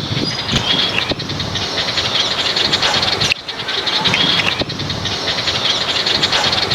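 Small birds chirping over a loud, steady background noise, with a brief dip about halfway through.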